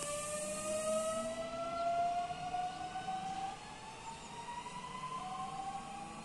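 Newag Impuls 2 (31WEbb) electric multiple unit pulling away, its traction motor inverters giving a whine that climbs steadily in pitch as the train accelerates. The whine breaks off about three and a half seconds in and returns higher near the end, fainter as the train draws away.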